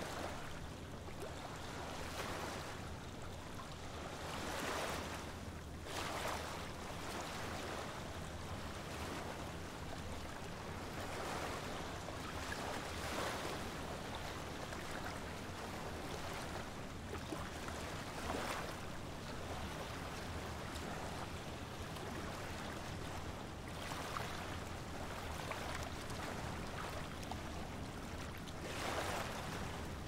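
Small waves washing onto a sandy beach, each swelling up and falling away every few seconds, over a steady low rumble.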